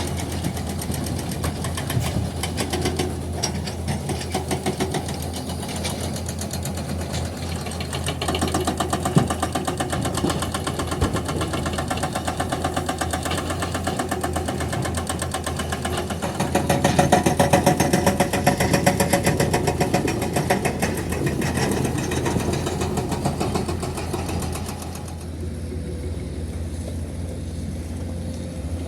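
Heavy construction machinery's diesel engine running with a steady low drone and a fast, even firing beat. It grows louder under load in the middle, then settles back lower near the end.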